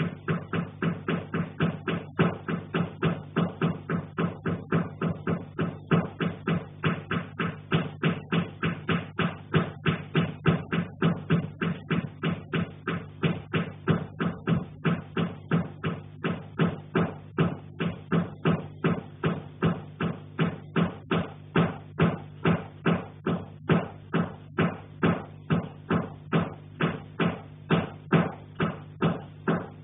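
Steady, rhythmic knocking from the attic overhead, about three knocks a second, over a low steady hum.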